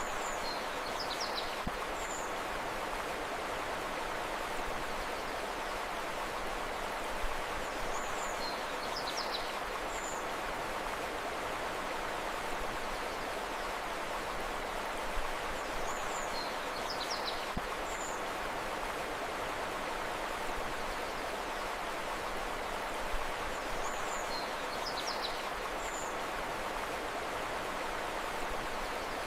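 Steady rushing of river water, with a short phrase of high bird chirps that repeats about every eight seconds, four times.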